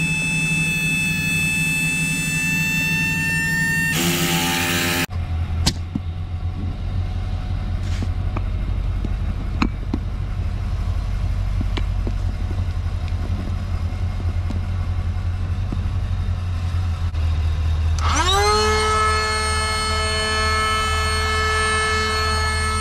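Pickup truck engine idling with a low steady rumble and scattered small clicks. About eighteen seconds in, an electric inflator pump powered from the truck starts with a rising whine and settles to a steady hum as it begins filling the inflatable kayak. A steady whine in the first few seconds cuts off with a brief burst of noise.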